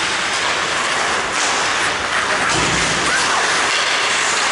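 Ice hockey skates scraping and carving on the rink ice during play, a continuous hiss with a couple of sharper scrapes about one and a half and two and a half seconds in.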